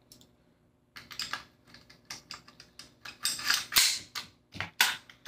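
Metal-on-metal clicks and clacks of an AR-15 pistol's upper receiver being fitted back onto its lower receiver: a quick series of sharp clicks starting about a second in, busiest about three to four seconds in.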